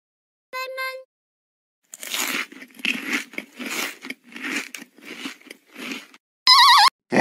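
Chewing sound effect: a run of crunchy bites, about two a second, for around four seconds. A brief pitched note comes just before it, and a short warbling tone near the end.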